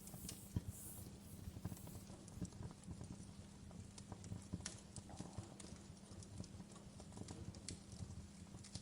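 Wood fire crackling in a fireplace, quiet: irregular sharp pops and snaps over a low, steady rumble.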